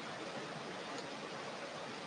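Steady rain falling, mixed with the wash of surf breaking on a beach: an even, unbroken hiss.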